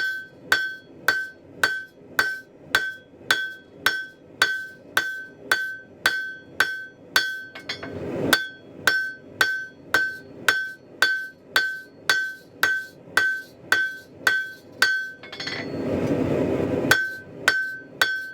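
A 3-pound hammer striking a hot mild-steel bar on an anvil at a steady rate of about two blows a second, each blow ringing clearly, while the bar is drawn out. Near the end the hammering stops for about a second and a half, filled by a rushing noise, then starts again.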